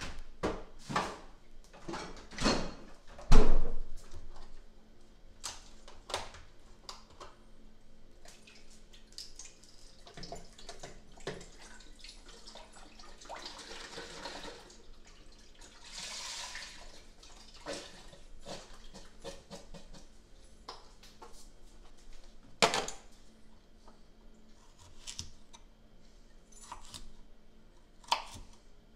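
Kitchen work sounds: knocks and clatter of pots and utensils, with a sharp knock about three seconds in the loudest. Midway, seafood stock is poured from a carton into a pot for a few seconds. Near the end comes the tap of a chef's knife on a plastic cutting board.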